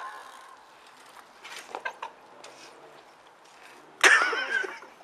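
Mostly quiet for about four seconds, with a few faint ticks, then a loud yell from a teenage boy, wavering up and down in pitch, breaks in suddenly for about a second.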